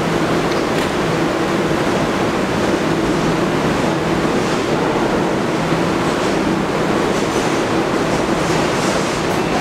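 New York City Subway train at the platform with its doors closed, giving a steady hum and rumble as it starts to pull out near the end.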